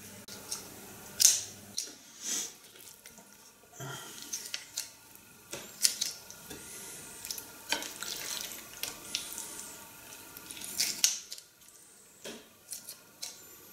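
Kitchen scissors snipping through raw squid on a plate: a series of short, sharp snips and clicks of the blades at uneven intervals.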